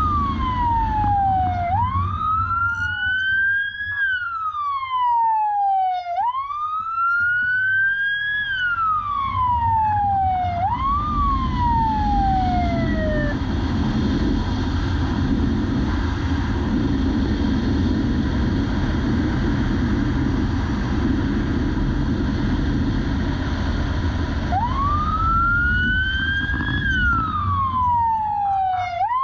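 Police motorcycle siren wailing in slow sweeps that rise quickly and fall off, about one every four seconds, with higher overlapping sweeps early on; it stops about thirteen seconds in and starts again near the end. Under it runs a steady low rush of wind and road noise from the motorcycle moving at speed.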